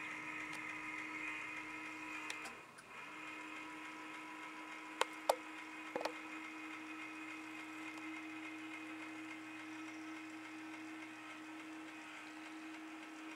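An antenna rotator's electric motor hums steadily at one pitch while it turns a roof-mounted Wi-Fi dish. The hum drops out briefly about two and a half seconds in, then runs on. A few sharp clicks come near the middle.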